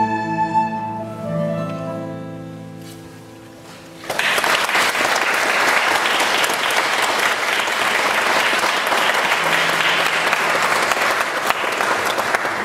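Recorders and a keyboard end a piece, and their last held notes fade away over the first few seconds. About four seconds in, the audience breaks into applause, which thins out near the end.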